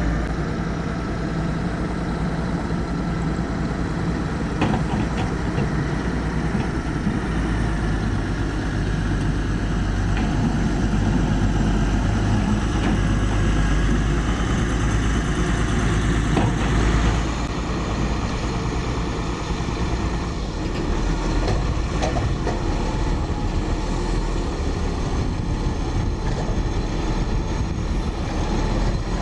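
Heavy diesel construction machinery running, a steady low engine rumble that eases off about two-thirds of the way through, with a few faint knocks.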